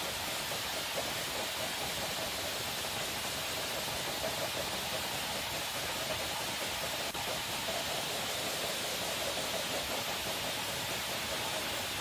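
Ultra-high-pressure water jet of a concrete hydrodemolition unit (up to 2800 bar) blasting, a loud steady hiss and rush that comes on abruptly and holds without a break.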